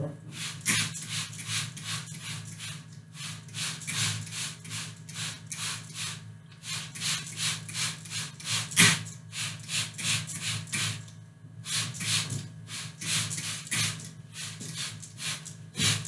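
Cloth wiping the large leaves of a white bird of paradise (Strelitzia) to clean off dust: rhythmic rubbing strokes about three a second, pausing briefly twice.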